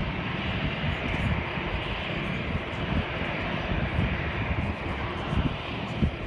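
Jet airliner engines: a steady rumble with a hiss.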